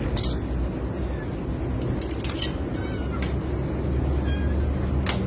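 A kitten with its head stuck in a pipe mewing faintly several times, while a metal blade knocks against the pipe with a few sharp clicks. A steady low hum runs underneath.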